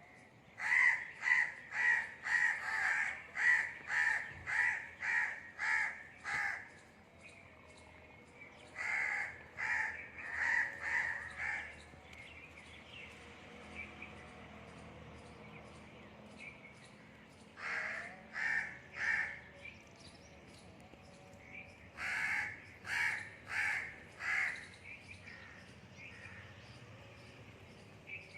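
Crows cawing at a kitten in runs of quick caws, about two a second: a long run of about a dozen at the start, then shorter runs of four to six, with pauses between.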